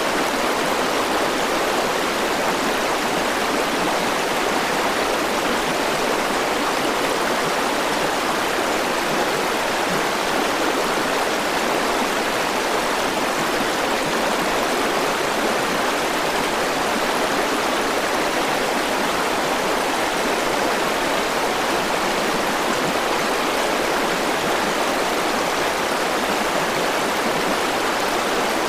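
River water flowing and rushing steadily over stones, an even, unbroken sound.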